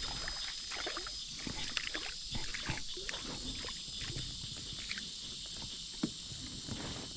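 Scattered small knocks, clicks and light splashing around a kayak while a hooked fish is reeled in, over a steady high drone of insects.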